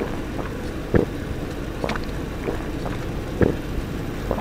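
A person gulping a drink from a can, about five separate swallows, over a steady low rumble.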